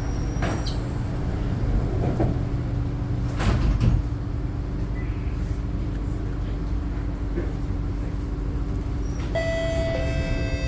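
Sliding doors of a Kawasaki-Nippon Sharyo C751B train closing, with a thump about half a second in and a louder thump about three and a half seconds in as a slow-closing door finally shuts, over the steady hum of the train. Several steady tones start near the end.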